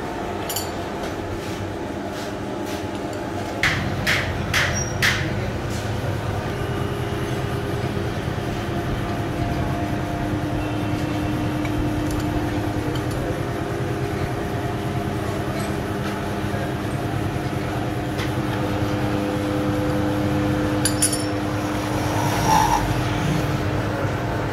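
Vertical milling machine running with a steady hum of several held tones. About four seconds in, four sharp knocks come in quick succession.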